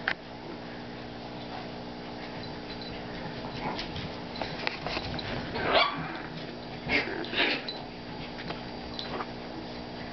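A Chihuahua puppy and a blue heeler playing, giving a handful of short yelping calls in the middle of the stretch, the loudest about six seconds in and two more close together about a second later.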